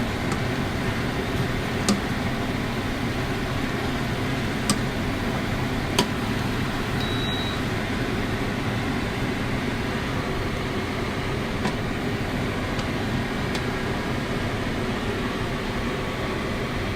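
A steady mechanical whooshing hum, like a running fan, with a few light clicks about 2, 5, 6 and 12 seconds in.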